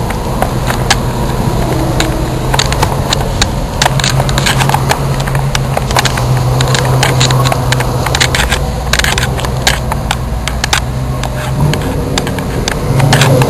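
Ford Mustang's engine running at a steady drone while driving, heard from inside the car, with many sharp clicks and crackles over it. The engine note drops away briefly near the end, then comes back.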